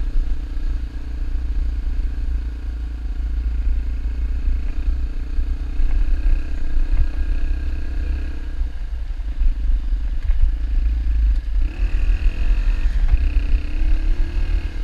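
Dirt bike engine running at riding speed on a gravel road, over a heavy low rumble of wind on the microphone. About twelve seconds in, the engine note rises as the throttle opens.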